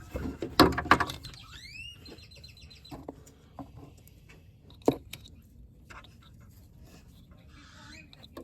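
Handling of a fog light's plastic wiring-harness connector: a few sharp clicks and knocks, a quick run of short rising squeaks about two seconds in, then faint scattered ticks and one more sharp click about five seconds in.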